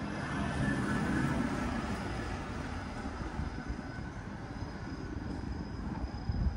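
A passing vehicle's rumble and hiss, swelling about a second in and then slowly easing off, over a thin steady high tone.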